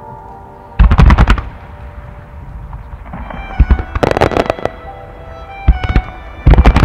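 Rapid volleys of aerial firework shells bursting in clusters of sharp, loud bangs, about a second in, around four seconds in and again near the end, over steady music.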